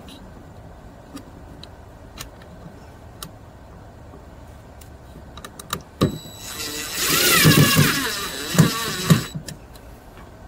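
DeWalt cordless drill/driver driving a screw into the fiber terminal's mount. The motor runs for about two seconds with its pitch rising, then gives two short bursts as the screw is snugged down. It follows a few seconds of light clicking from handling.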